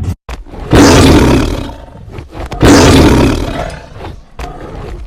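Tiger roaring twice, each roar loud, starting abruptly and fading over about a second; the first comes just under a second in, the second about two and a half seconds in.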